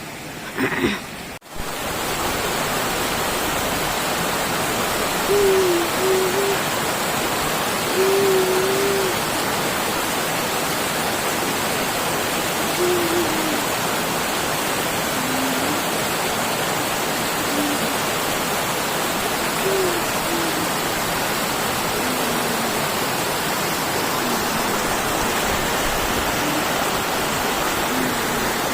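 Steady rush of a waterfall. Over it, short low hooting calls sound every few seconds, the loudest at about five and eight seconds in.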